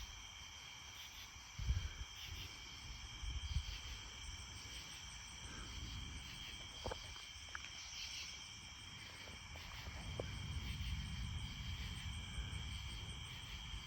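Steady chorus of night insects, several high tones held without a break, with brief low rumbles of wind on the microphone now and then.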